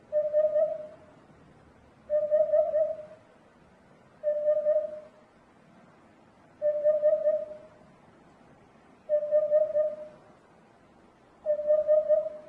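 Hoopoe singing its low, hollow 'oop-oop-oop' song: three quick hoots to a phrase, the phrase repeated six times about every two seconds.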